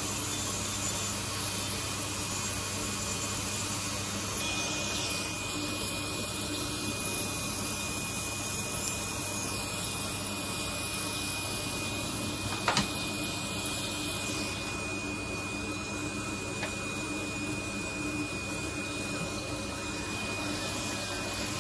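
Podiatry nail drill with built-in dust suction running steadily while it grinds down a thickened ram's horn toenail (onychogryphosis). A thin, steady high whine joins the motor noise about four seconds in, and a single sharp click comes near the middle.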